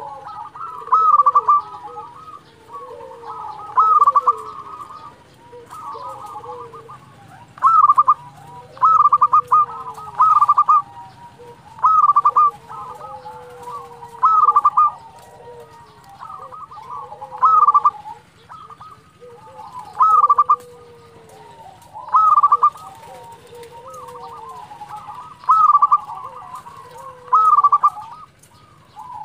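Zebra dove (perkutut) cooing in full song: short, rapid staccato coo phrases repeated about every two seconds, with softer, lower gliding notes between them.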